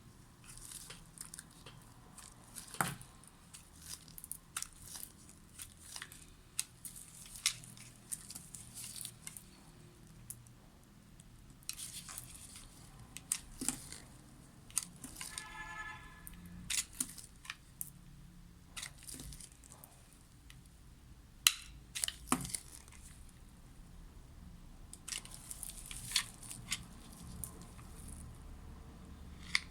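Knife cutting through dry bar soap into cubes: crisp crunches and crackles at irregular intervals as the blade breaks through. There is a brief squeak about halfway through.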